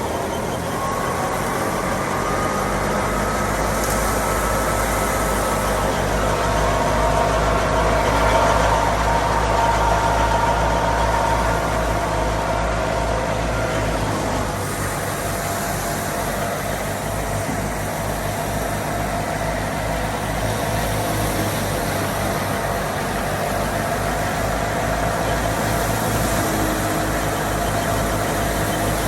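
Fiat 480 tractor's diesel engine running steadily, with a higher machinery whine above it that slowly rises over the first ten seconds and fades about halfway through.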